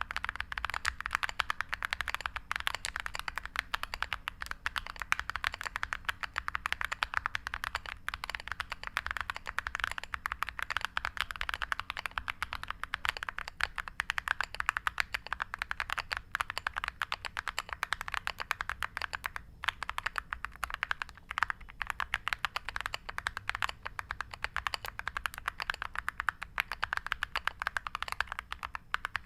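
Continuous fast typing on a mechanical keyboard with Akko V3 Creamy Purple Pro tactile switches and PBT MOG-profile keycaps: a dense, even stream of key clacks with no pauses longer than a moment.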